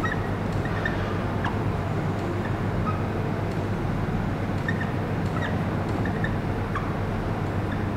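Steady low hum and hiss of room background noise, with faint short high chirps or squeaks dotted through it every second or so.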